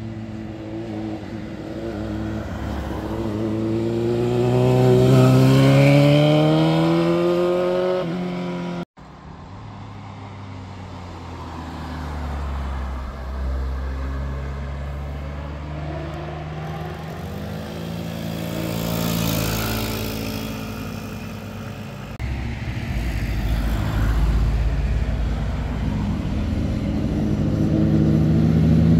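Sport motorcycles accelerating through a hairpin bend, the engine note rising steadily as the first bike passes. The sound cuts out for an instant about nine seconds in; after that a car goes through the bend, and near the end the note of two more motorcycles swells as they approach.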